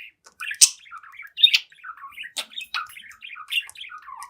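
Young budgerigar warbling and chattering: a continuous stream of quick chirps and squawks, with a few sharp, louder notes.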